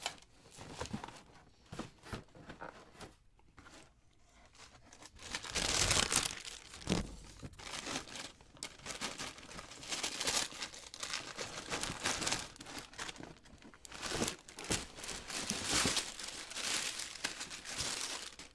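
Paper packaging crinkling, rustling and tearing as a new pair of shoes is unwrapped from its box. The crackling is sparse at first and becomes busier and louder from about five seconds in.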